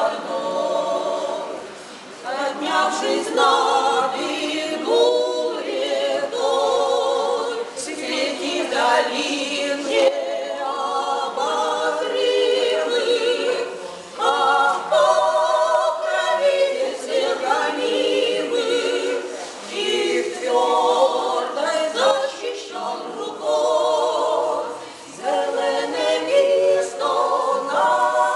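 Women's vocal trio singing a cappella, the voices wavering in a wide vibrato, with a few short breaks between phrases.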